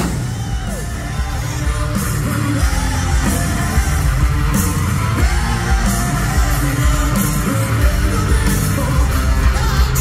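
Live rock band playing loud through an arena sound system, with drums, electric guitars and bass under a male lead vocal, heard from within the crowd.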